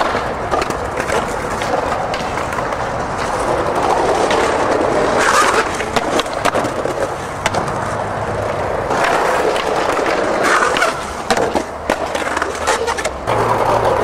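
Skateboard wheels rolling over stone paving: a steady rolling rumble with many short clicks, swelling a little twice.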